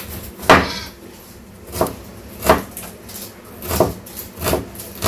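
Large kitchen knife chopping onions on a wooden tabletop: a sharp knock of the blade against the wood every half second to a second.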